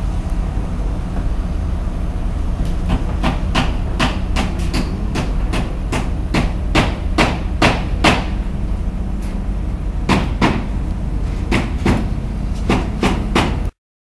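Construction-site hammering: a run of sharp, irregular blows, about one or two a second, over a steady low rumble. It all cuts off suddenly near the end.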